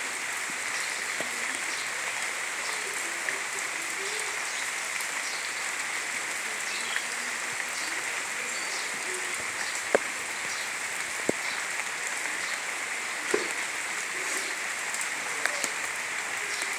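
Steady rainfall, an even hiss of rain coming down, with a few scattered sharp taps, the loudest about ten seconds in.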